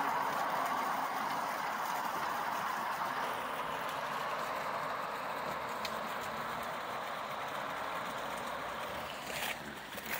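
A passing car's tyre and road noise, a steady rush that fades slowly as the car goes away.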